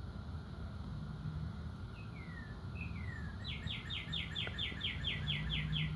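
A songbird singing: two short falling slurs, then a fast trill of about a dozen notes, over a steady low hum.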